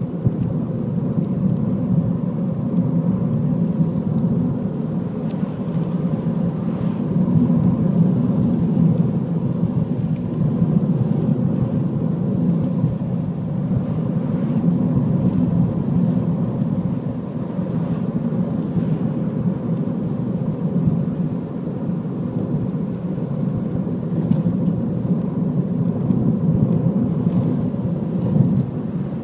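A car driving at steady speed: a constant low rumble of tyres on the road and the engine, with a faint steady hum above it.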